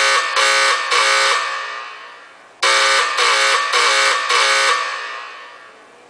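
Autocall 10-inch single-stroke fire alarm bells sounding a coded alarm, struck in groups of four evenly spaced strokes with a short pause between groups. Each group rings away before the next begins. This is the 4-4-4-4 march-time code timed by the Autocall control panel.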